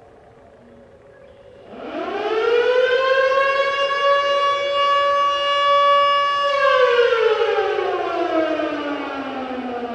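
Federal Signal Model 2 electromechanical outdoor warning siren on its wail signal for a monthly test. It winds up sharply about two seconds in, holds a loud steady tone, then winds down in a slow falling glide from about six and a half seconds on. Other sirens sound faintly in the distance before it starts.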